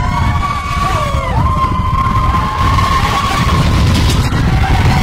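Mine-train roller coaster running at speed: a loud, steady rumble of the train on its track with wind noise, and long, high, wavering squeals over it.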